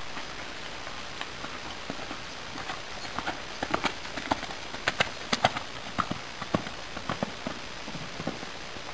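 Hoofbeats of a ridden grey Connemara gelding: a run of sharp clip-clops that grow louder towards the middle, then fade away.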